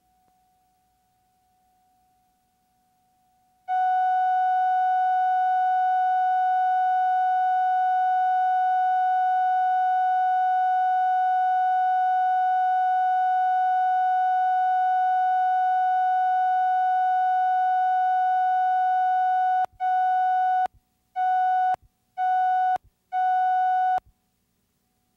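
Steady videotape line-up test tone, a single pure pitch. It is faint at first and comes in loud about four seconds in. Near the end it breaks into four roughly one-second countdown beeps, then cuts off.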